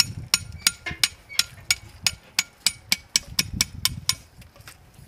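Knife blades scraping the skin of a whole pig carcass, a quick run of sharp metallic clicks about three or four a second that stops shortly before the end.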